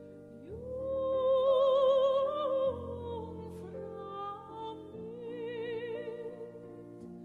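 Operatic singing over sustained chords: a voice with wide vibrato swells into a long held high note about half a second in, then goes on in lower phrases.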